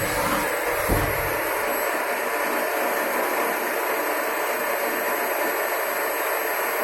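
FUDA CNC turning and milling machine running while machining brass: a steady whirring hiss, with a brief low knock about a second in.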